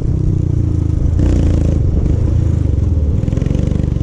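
Royal Enfield Himalayan single-cylinder engine running through an aftermarket Akrapovic exhaust while riding, with a deep, fast-pulsing exhaust note. A brief rush of wind noise comes a little over a second in.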